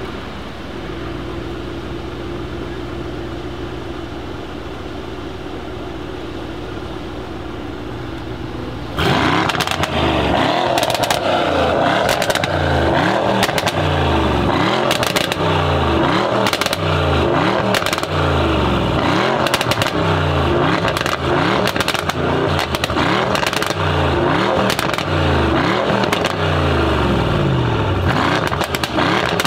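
Mercedes-AMG E63 S twin-turbo V8 with a decat exhaust, stationary, idling steadily, then about nine seconds in revved hard in repeated blips, roughly one a second, with crackles and pops between revs.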